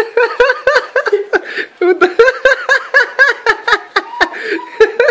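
A boy laughing in rapid, high-pitched giggles, about five a second, in a few long runs with short breaks between them.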